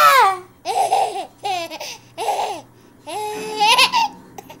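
Baby laughing in about five short, high-pitched bursts.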